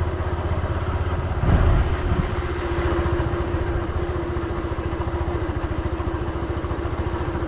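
Motorcycle engine running steadily under way, with a steady hum over the engine pulse and a brief louder low surge about a second and a half in.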